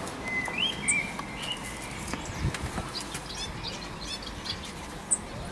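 Small songbirds chirping: a few short high chirps in the first second and a quick run of high notes a couple of seconds later, over steady outdoor background noise.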